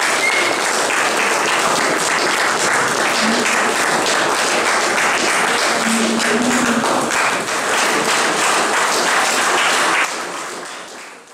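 Audience applauding, a dense steady clapping of many hands with a few faint voices through it, fading out near the end.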